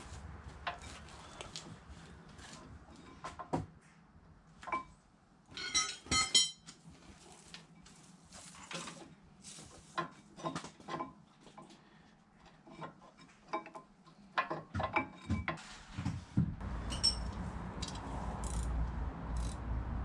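Metal parts and hand tools clinking and knocking as a brake caliper is fitted back over the disc, with a brief cluster of ringing metallic clinks about six seconds in. A low steady rumble comes in near the end.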